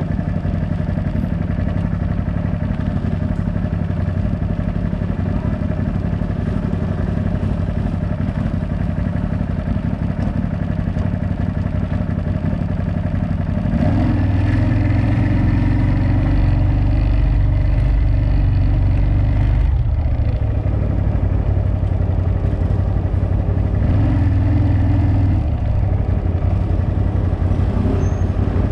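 CFMoto CForce 1000 ATV's V-twin engine running at a steady, modest throttle. About halfway through it grows louder and deeper under throttle for several seconds, then eases off, with a second shorter pull a few seconds before the end.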